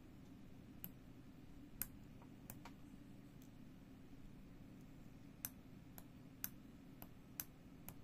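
4-pin tactile push-button switch clicking as it is pressed and released, about ten short, sharp clicks at irregular spacing.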